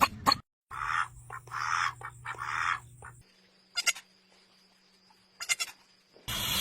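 A run of short animal calls cut together from different clips: three hoarse, noisy calls in the first half, then two brief bursts of rapid clicking chirps.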